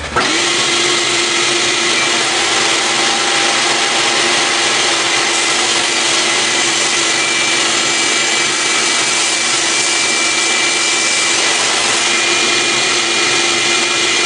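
Power saw running steadily as it cuts black walnut boards to square up their edges. The motor comes on abruptly at the start, with a constant hum under the noise.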